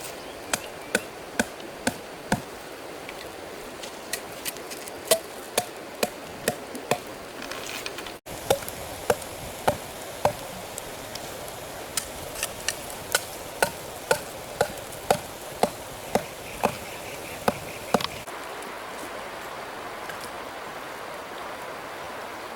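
Repeated sharp knocks, about two a second, like a blade or tool striking something hard. They pause briefly around 8 s and stop about 18 s in.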